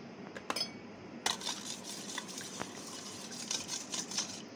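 Metal spoon stirring milk briskly in a stainless steel bowl, scraping and clinking rapidly against the sides from about a second in, after a few light taps near the start.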